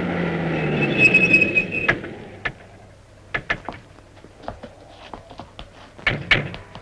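A car pulling away fast, its engine noise joined by a brief tyre squeal, which cuts off about two seconds in. Then comes a run of scattered light knocks and clicks.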